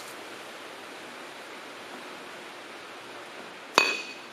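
A single sharp metallic clink with a brief ring near the end, as the John Deere 4020's metal cylinder liner knocks against the engine block at the bore, over a steady low hiss.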